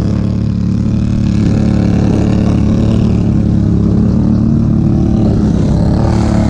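ATV engine running steadily at a constant speed, loud and close.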